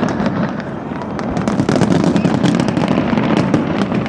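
Fireworks display going off without pause: dense crackling and many sharp pops over a steady low rumble of bursts.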